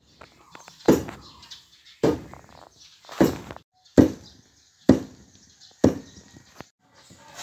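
A long wooden pestle pounding soaked rice in a stone mortar: six heavy thuds about a second apart, then a lighter one near the end.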